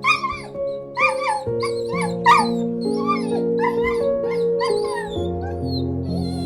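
Gentle background music of held piano and guitar notes, with an animal's short, high-pitched calls repeating about twice a second over it. The calls grow fainter from about five seconds in.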